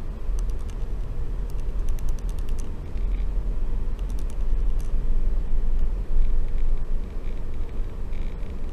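A steady low rumble, with a few short runs of light, rapid clicks.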